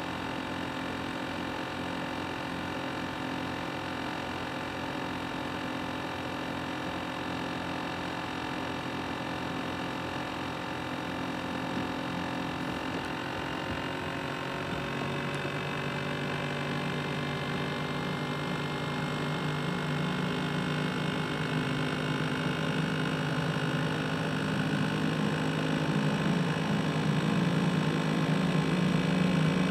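Asus X543UA laptop's CPU cooling fan running with a steady whir of several tones. From about halfway through, its pitch slowly rises and it grows louder as it speeds up.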